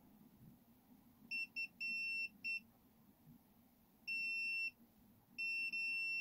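Digital multimeter's continuity beeper sounding in irregular beeps of one steady high tone, some short and some about half a second or longer, as the probe is touched to points on a car smart key circuit board. Each beep marks continuity with the battery's negative contact, showing that point to be ground.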